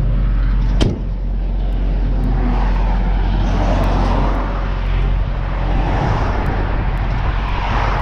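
Semi truck's diesel engine idling with a steady low rumble, a truck door slammed shut about a second in, and traffic passing by on the highway.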